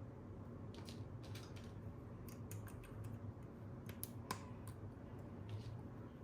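Plastic toy parts and packaging being handled: scattered light clicks and taps, with one sharper click about four seconds in.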